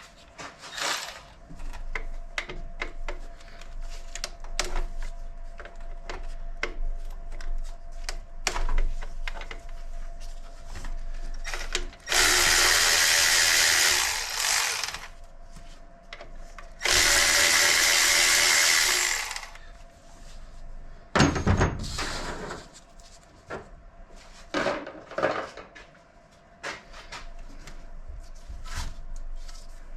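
A power tool run in two bursts of about three seconds each, amid clinks and knocks of hand tools and parts being handled on the engine.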